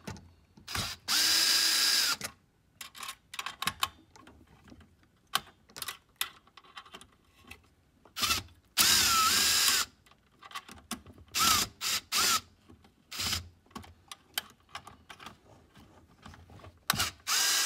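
Electric quarter-inch nut driver running in short spurts, backing out small collared screws from a slide projector's steel chassis. There are three runs of about a second each: one about a second in, one around nine seconds, and one near the end, plus a few brief blips around twelve seconds. Clicks and rattles of the bit and screws come between the runs.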